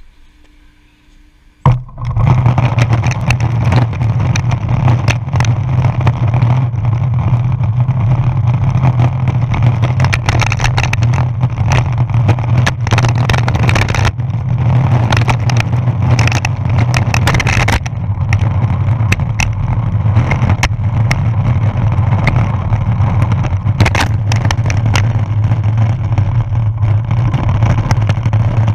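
Longboard wheels rolling fast on a paved path, a steady loud rumble carried through the deck to a board-mounted camera, with many sharp clicks and knocks from cracks and grit in the surface. It starts suddenly about two seconds in after a near-quiet opening.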